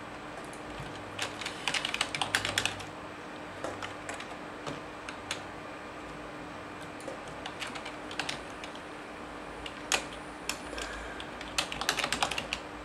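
Typing on a computer keyboard in short bursts of quick keystrokes with pauses between, over a faint steady hum.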